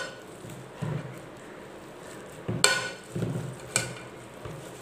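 A metal potato masher pressing down into boiled green gram and knocking against the bottom of a pressure cooker pot: a few irregular knocks, two of them louder, with a short metallic ring, and soft squishing between them.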